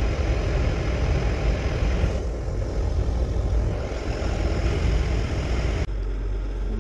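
Passenger train running, heard from inside the carriage: a steady rumble of wheels and running gear. Near the end it cuts off suddenly, giving way to a quieter, steady low hum.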